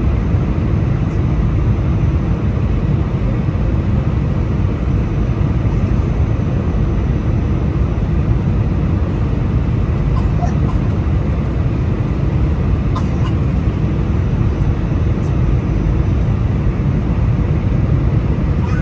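Steady low rumble of engines and rushing air inside the cabin of an Airbus A320-200 descending on final approach, shortly before touchdown.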